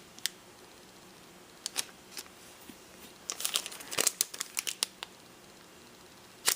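Crinkling and rustling of handmade paper craft cards being handled, in scattered short crackles that grow busiest from about three to five seconds in.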